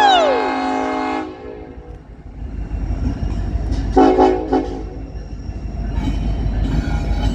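Diesel locomotive air horn sounding a steady chord that cuts off about a second in, then the locomotive's engine rumble building as the train closes in, with a brief horn blast about four seconds in. The locomotive is Union Pacific 1996, an EMD SD70ACE.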